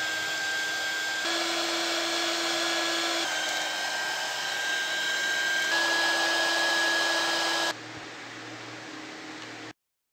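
Small 300 W hot air gun running: a steady rush of air with a thin steady whine, changing slightly at several abrupt cuts. Near the end it drops much quieter, then stops dead.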